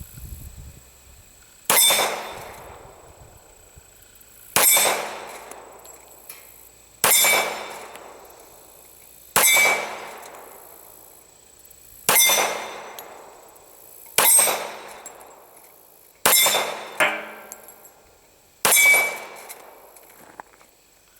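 Eight single shots from a Taurus PT1911 .45 ACP pistol, fired slowly about two to two and a half seconds apart, each followed by a short ringing decay.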